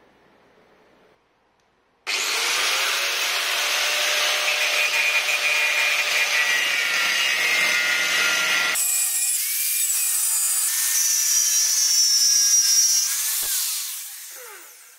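Angle grinder with a cutting disc cutting through the steel shell of a refrigerator compressor. It starts abruptly about two seconds in, the sound changes sharply a little before nine seconds, and it winds down and fades out near the end.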